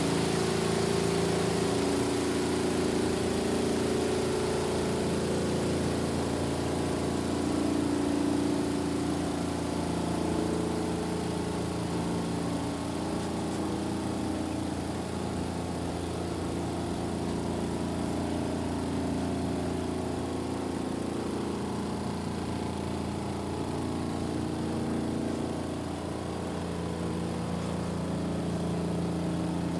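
Kuppet portable washing machine running mid-cycle: a steady motor hum whose pitch shifts slightly over time.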